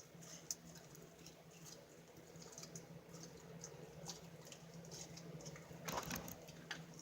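Slime being squished and worked by hand, making faint scattered clicks and small pops, a little louder about six seconds in.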